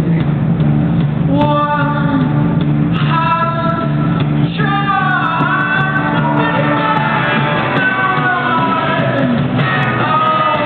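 Live band music in a concert hall: a sung or played melody with gliding, held notes over a steady bass and rhythm accompaniment. The recording is loud and dull-toned, typical of a small camera's microphone in the audience.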